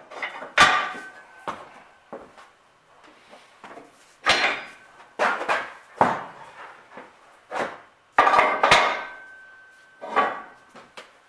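Heavy metal parts and tools being handled and set down on a steel press bed, giving a series of separate knocks and clanks. Two of them leave a short metallic ring.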